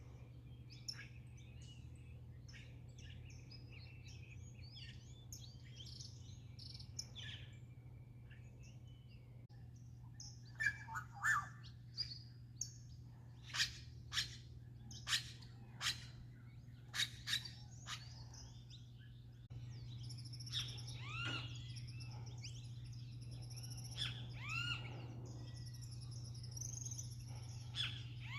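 Birds calling and chirping, with a run of loud, sharp calls about once a second in the middle and arched, sweeping calls later on. A steady low hum lies underneath.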